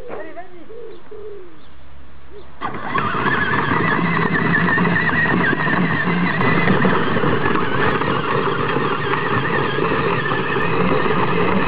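A child's battery-powered ride-on toy quad driving over gravel: a steady electric motor and gearbox whine over the crunch of its plastic wheels on the stones. It starts suddenly about two and a half seconds in and runs loud until it cuts off at the very end.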